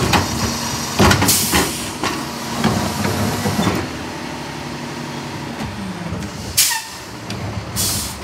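Heil DuraPack 5000 rear-loader garbage truck emptying a cart with its tipper: trash and the plastic cart clatter and knock over the running truck for the first few seconds. Then it runs more quietly, and there are two short, sharp air hisses near the end, typical of the air brakes.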